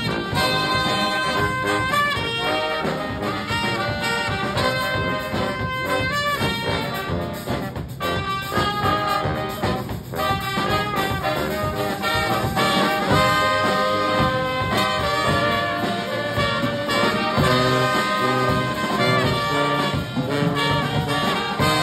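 A live brass band playing: trumpets, trombones and saxophones over a sousaphone and drum kit.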